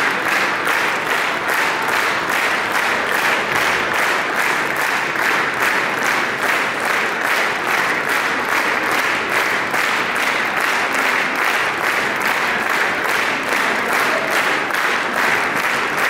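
Concert audience applauding steadily, the clapping fallen into a rhythmic beat in unison at about three claps a second.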